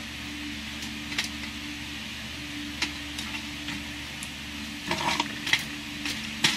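Scattered light clicks and taps of steel blades being handled and shifted on a rock-strewn workbench, a few at first and a quick cluster near the end, over a steady low hum.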